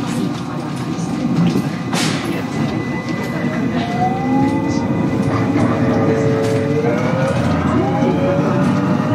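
JR West 223 series electric train running, its Hitachi IGBT-VVVF inverter and traction motors whining over the rolling noise. From about four seconds in the whine rises in pitch as the train accelerates. A sharp click about two seconds in.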